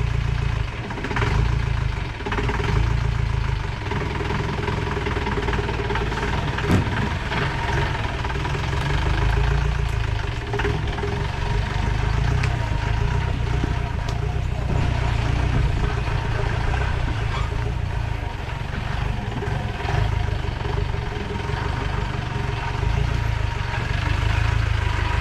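Safari jeep's engine running steadily over a rough off-road track, with knocks and rattles scattered through it and one sharper knock about seven seconds in.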